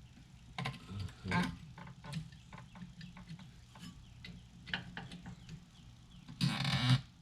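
Socket ratchet clicking in short, irregular runs, with a louder, faster run of clicks near the end, as the 15 mm hub bearing assembly bolts are backed out.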